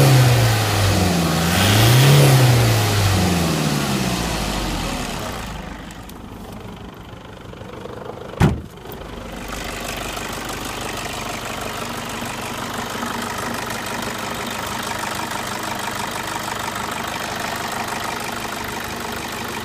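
Toyota Hilux 2KD-FTV 2.5-litre four-cylinder turbo diesel revved and released, a rise and fall early on, then dropping back to idle. A single sharp knock comes about eight and a half seconds in, and the engine then idles steadily.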